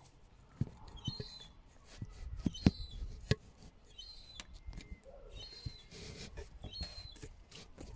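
Cartoon sound effects playing through a phone speaker: several short, high squeaky calls a second or two apart, mixed with sharp knocks and taps, the loudest a little over two and a half seconds in.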